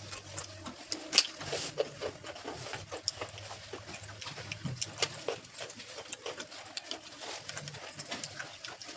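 Eating sounds as people work through plates of rice and paneer masala: irregular small wet clicks and smacks of chewing and mouthfuls, over a faint steady low hum.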